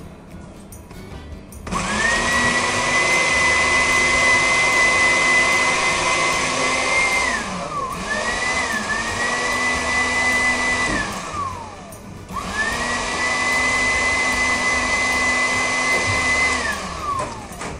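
Countertop glass-jar blender mixing a cocktail in three runs: each time the motor spins up to a steady high whine, runs a few seconds and winds down as it is switched off. The middle run stutters briefly just after it starts.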